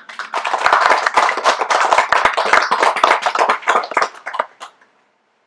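A small audience clapping, thinning out and stopping after about five seconds.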